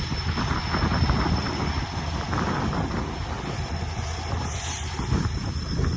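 EMD SD70-series diesel-electric locomotives leading a freight train, their diesel engines rumbling steadily as they pass.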